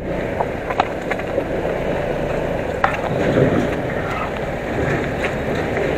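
Aprilia SXR 160 scooter riding over a rough, dusty road: a steady rumble of wind and road noise with the engine beneath it, and a few short knocks and rattles.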